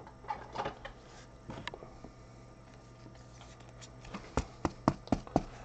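Gloved hands handling trading cards and card packs: a few scattered soft taps and rustles, then a quick run of sharp clicks and taps about four seconds in.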